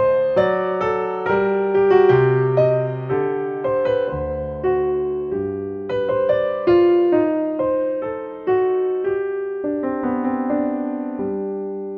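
Background music: a solo piano melody, notes struck at an even pace and ringing out, with a longer held chord near the end.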